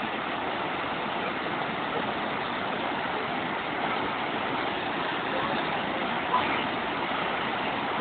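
Waterfall pouring over a rock ledge: a steady rush of falling water.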